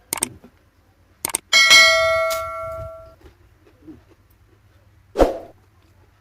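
A piece of tableware is struck during the meal and rings with a clear, bell-like tone that fades over about a second and a half, after a few light clicks. A dull thump follows near the end.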